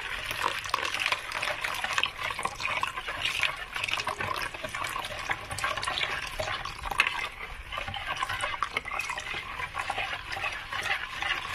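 Wire whisk stirring thin yogurt batter with broth in a plastic bowl: continuous wet sloshing, with many small ticks of the whisk against the bowl.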